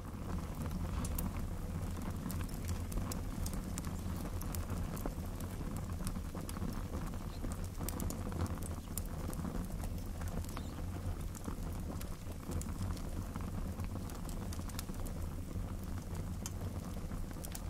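Campfire crackling: irregular sharp pops and snaps over a steady low rumble of burning.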